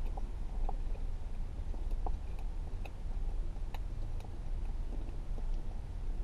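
Steady low rumble inside a parked car's cabin, with a few faint clicks as a man chews a bite of pancake and handles a plastic fork.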